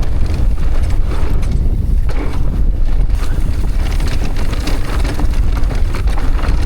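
Wind rumbling on the microphone during a fast mountain bike descent, with the tyres crunching and sliding over dry, loose dirt and the bike rattling over rough ground.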